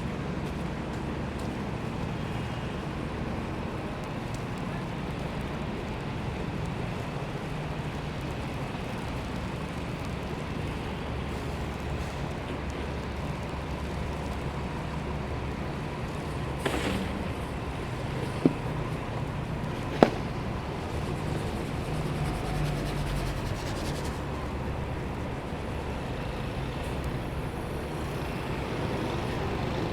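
City street ambience with a steady traffic rumble, broken by three sharp knocks in the second half.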